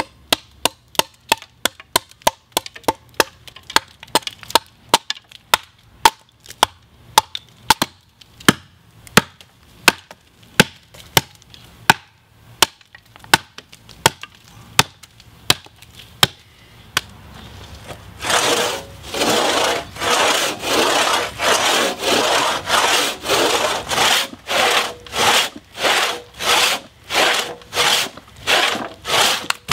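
Hatchet chopping into a birch log standing on a chopping block, quick sharp strikes two or three a second. About eighteen seconds in it gives way to a long crosscut saw cutting through a log, about two rasping strokes a second.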